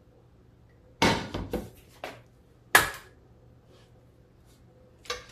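Cookware and utensils being handled, with short sharp clatters: a quick cluster about a second in, one loud clack near three seconds, and a lighter knock near the end.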